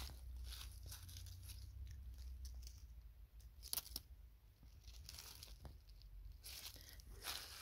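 Faint rustling and crackling of dry fallen leaves being disturbed by hand, with one sharper crackle a little under four seconds in, over a steady low rumble.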